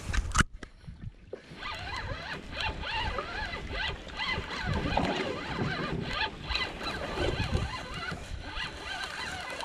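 A sharp knock about half a second in, then a spinning fishing reel being cranked with the line under load, a busy, scratchy whirring with small squeaks.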